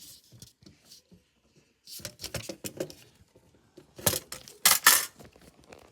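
Dry-erase marker writing on a whiteboard: a series of short scratchy strokes, loudest in a burst about four seconds in.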